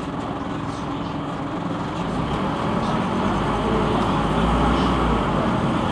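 Scania NewOmnicity city bus heard from inside the passenger cabin: a steady run of engine and road noise. It grows louder about two seconds in, and a deeper rumble joins a second later as the bus picks up speed.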